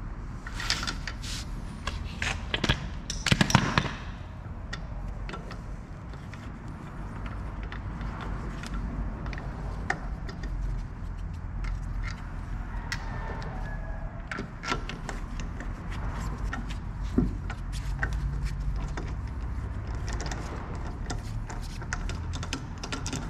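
Metal wheel bolts clicking and clinking as they are fitted and threaded by hand into a car's front wheel hub, with a cluster of louder knocks about three to four seconds in, over a steady low workshop hum.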